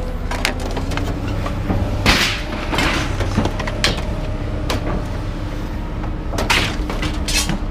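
Vehicle engine running steadily, with a series of clunks and rattles, about five of them loud.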